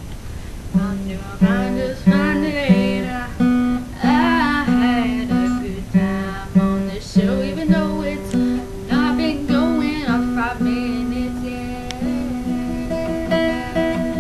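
A girl singing to her own strummed acoustic guitar, repeating a simple chord pattern. Her voice wavers over the steady strums.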